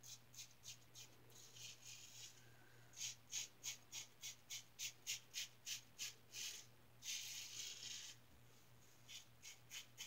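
3D-printed injector razor with a Schick blade cutting through lathered stubble in short, quick strokes, about three a second, with a longer stroke about seven seconds in: the crisp, scratchy "buttering toast" sound of a blade shaving whiskers.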